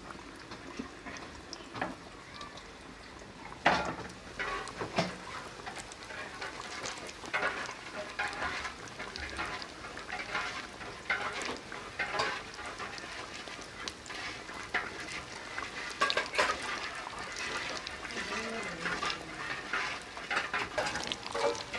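Breaded chicken-and-potato tikkis deep-frying in hot oil in a wok: a steady sizzle with quick, irregular crackles. It is quieter for the first few seconds, then a sharp crack about four seconds in and busier crackling from then on.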